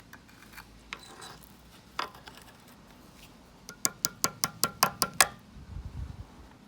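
A few scattered knocks, then a quick even run of about nine sharp metallic clicks, each with a slight ring, lasting just over a second.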